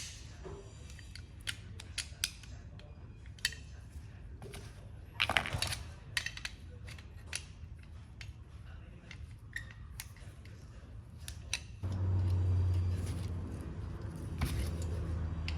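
Scattered metallic clicks and clinks of drum-brake hardware (springs, adjuster and handbrake cable holder) being handled and fitted onto new rear brake shoes, with a short burst of rattling about five seconds in. About twelve seconds in a low steady hum starts and carries on.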